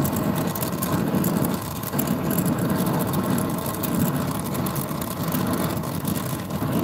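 Brazing torch flame burning with a steady rumble while a joint in a refrigerator's sealed-system tubing at the compressor is heated.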